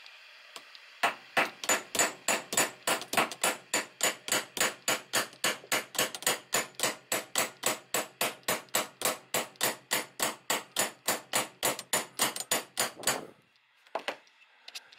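Claw hammer tapping steadily on an adjustable wrench, metal on metal, about four strikes a second, starting about a second in and stopping shortly before the end. The blows are driving a seized bearing block (bushing) off a sewing machine's bobbin driveshaft.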